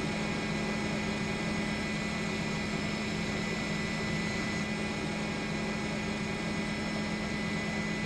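Steady drone of an aircraft engine, with a constant low hum and a high whine over an even noise.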